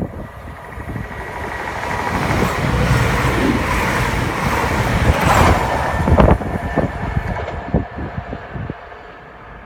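CrossCountry diesel passenger train passing through the station at speed without stopping. It grows louder as it approaches, is loudest for a few seconds midway with several sharp knocks, then fades as it goes away.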